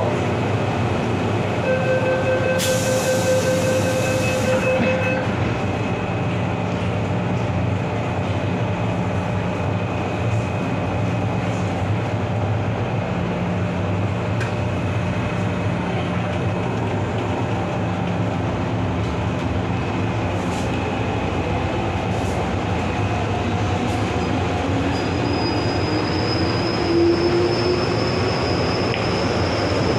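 MTR Island Line M-Train electric multiple unit running between stations, a steady rumble of wheels and car. There is a short hiss with a held tone about three seconds in, and a whine that rises in pitch near the end.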